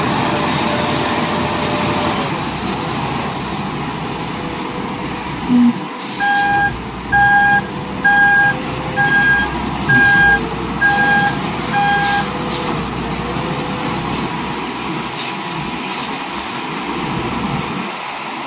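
A heavy machine's engine running steadily, with a backup alarm sounding seven beeps about once a second partway through.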